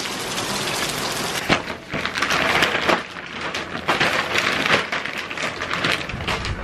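Steady rain hiss for the first second and a half, then plastic sheeting crinkling and rustling close to the microphone in irregular crackly bursts.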